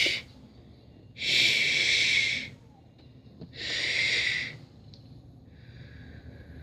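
Two long breathy hisses, each over a second, about two seconds apart, with a fainter hiss near the end.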